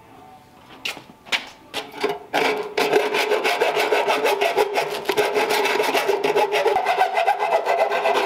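Hacksaw cutting through a brass port on a 1939 Ford radiator tank: a few hesitant strokes to start the cut, then quick, steady sawing from about two seconds in, with a steady ringing note under the strokes.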